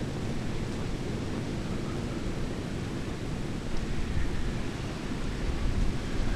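Snowstorm wind blowing and buffeting the microphone: a steady low rumbling rush, with gusts swelling about two-thirds of the way through and again near the end.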